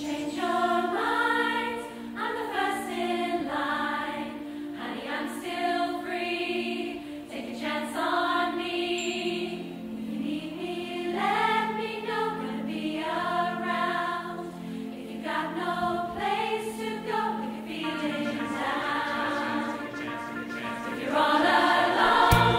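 A mixed choir of men and women singing together, with long held low notes underneath; the music grows louder near the end.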